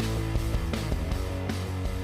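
Background music: an instrumental track with guitar over a steady beat.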